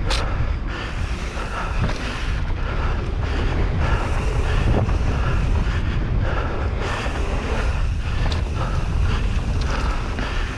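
Wind buffeting the microphone of a camera riding on a mountain bike, over the steady sound of knobby tyres rolling on dirt singletrack. A few short knocks and rattles from the bike come through.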